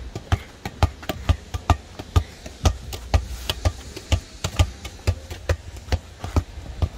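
Quick, irregular tapping and knocking, about three or four sharp taps a second, with dull thuds underneath.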